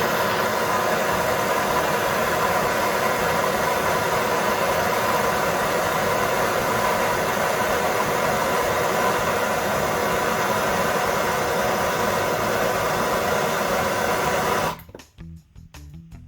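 Gas torch burning with a steady rushing hiss, heating a copper cable lug to flow solder onto the welding cable; it cuts off about fifteen seconds in.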